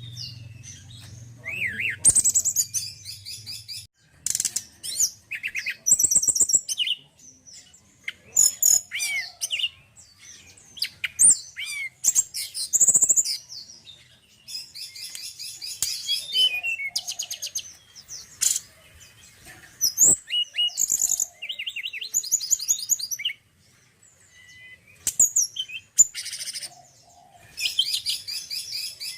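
Male tledekan gunung flycatcher singing: bursts of high, rapid chirps and fast trills in short varied phrases, broken by brief pauses.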